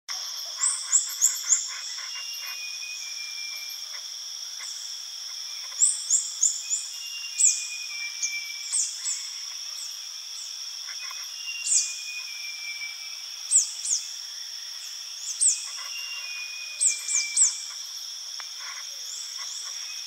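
Red-capped flowerpecker calling: short, high, down-slurred 'seeep' notes, often in quick runs of three or four, repeated every few seconds, with a few longer, lower falling notes between them. A steady high-pitched drone runs behind the calls.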